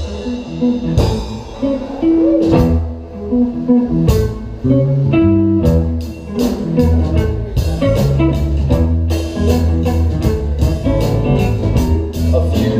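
Live rock band playing an instrumental passage: guitar over bass and a drum kit, with the cymbals and drums coming in about a second in.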